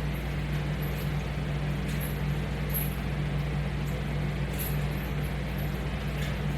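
Steady low hum with an even hiss, unchanging throughout: continuous room or machine background noise with no distinct events.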